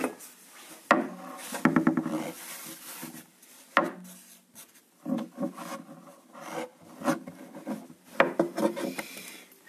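A long thin wooden rolling pin working a sheet of phyllo dough back and forth over a wooden pastry board: wood rubbing and scraping in repeated passes, with a few sharp knocks of the pin against the board.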